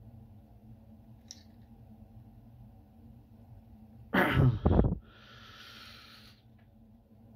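A loud, close breath-like sound lasting under a second, about four seconds in, followed by a softer hiss for about a second and a half.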